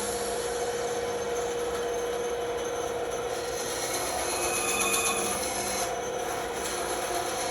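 Bandsaw running with its blade cutting through wood: a steady machine hum under the continuous rasp of the cut.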